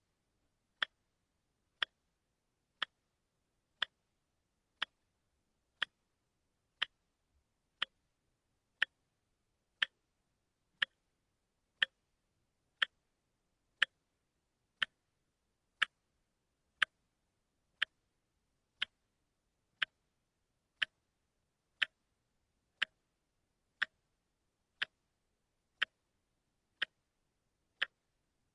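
Watch ticking steadily, one short, sharp tick about every second.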